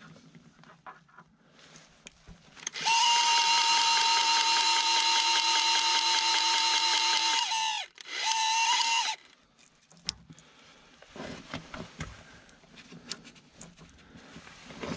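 Battery-powered grease gun motor pumping grease into a joint: a steady high whine for about five seconds, a short pause, then about another second, its pitch sagging each time it stops. Light clicks and handling knocks follow.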